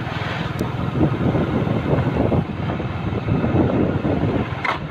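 A vehicle engine running steadily at low speed on a rough, stony road, with a short knock near the end.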